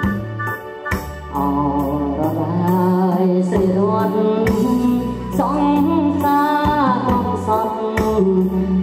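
A song over a PA: electronic keyboard backing with a steady beat, and a singer's amplified voice coming in about a second and a half in, sung with vibrato into a handheld microphone.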